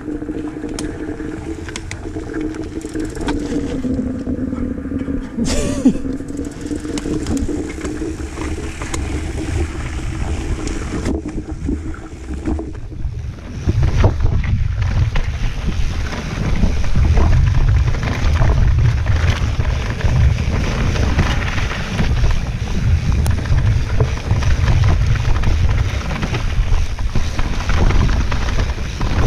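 Mountain bike riding down a rough forest dirt trail: tyres rolling over dirt, roots and rocks with frequent knocks and rattles. Wind buffeting the microphone becomes much louder about halfway through. In the first half a steady buzzing tone wavers in pitch.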